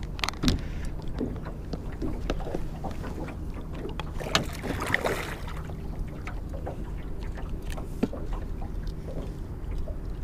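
Water slapping against an aluminum boat's hull with wind on the microphone, a low steady hum and scattered small knocks of gear on the boat. A louder rushing burst comes about four and a half seconds in.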